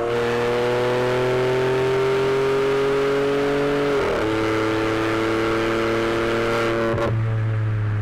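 VW Polo TSI with an aftermarket exhaust and stage 2 remap accelerating hard in third gear, its engine note climbing steadily. About four seconds in it shifts up to fourth, the pitch drops, and it pulls on. Near the end the note dips and a deep drone comes in.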